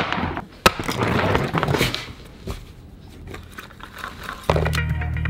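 Room sounds in a studio: a sharp knock about half a second in, a brief squeak-like pitched sound, then quiet handling noises as a glasses case is taken out of its box. A music bed with a steady low hum comes back in about four and a half seconds in.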